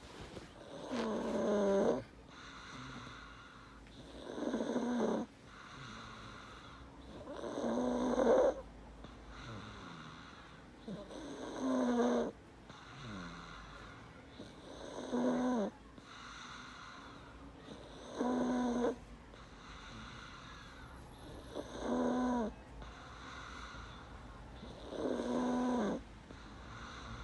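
A boy snoring in his sleep. There are eight loud, rattling snores, about one every three and a half seconds, each lasting about a second, with softer breathing between them.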